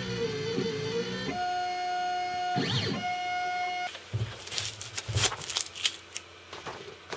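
Inventables CNC router's stepper motors whining as the machine carries a pen through its drawing moves, the pitch sliding up and down as the axes change speed. After about four seconds the drawn paper is pulled off the bed, with its tape crackling and peeling.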